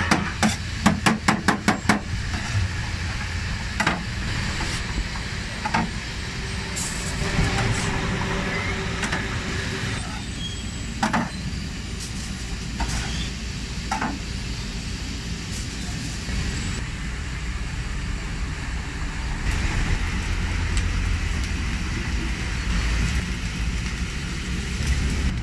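A cleaver chopping meat on a steel taco griddle, a quick run of sharp knocks in the first two seconds, then scattered single knocks of metal on the griddle. A steady low street rumble runs underneath.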